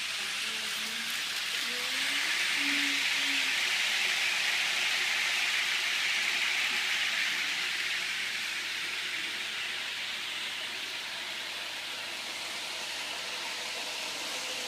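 Train noise: a steady hiss-like rush that swells about two seconds in and eases off after about eight seconds.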